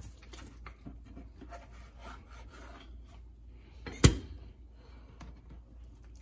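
Knife sawing through the crusty bark of a smoked brisket on a plastic cutting board, a run of faint scraping strokes, with one sharp knock about four seconds in.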